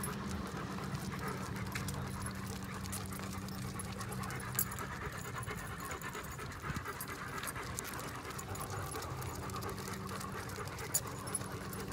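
Dogs panting steadily while walking on leash, over a steady low hum.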